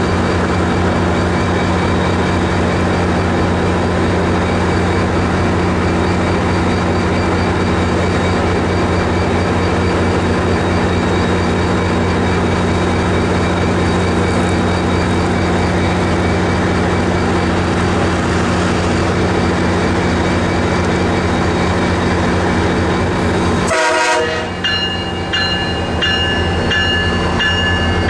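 MARC MP36PH diesel-electric locomotive idling while stopped, a loud steady hum with several held tones. About 24 seconds in the engine note cuts out sharply and higher ringing tones start, repeating in short pulses.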